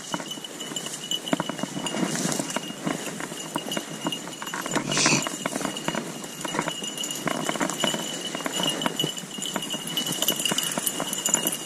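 Rustling and crackling in dry brush, many small irregular crackles like footsteps pushing through cover, with a faint steady high tone throughout.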